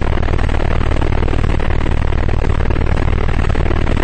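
Eurocopter AS350 BA Ecureuil helicopter in flight: a steady, loud drone of its turbine engine and main rotor.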